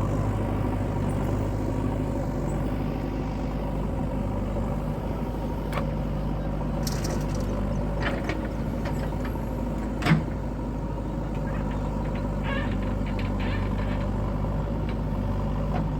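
Heavy diesel engine running steadily, with scattered metallic clanks and one sharp knock about ten seconds in.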